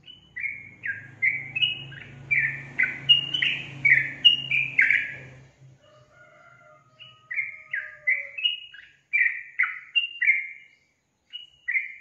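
Yellow-vented bulbul (trucukan) singing in two rapid runs of short, loud, downward-slurred notes, about two to three a second, with a pause between the runs and a couple of last notes near the end. A faint low hum sits under the first run.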